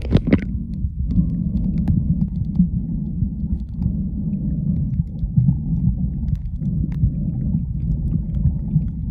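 A splash as a camera goes under the water, then the steady, muffled low rumble of underwater sound picked up by the submerged camera, with faint scattered clicks.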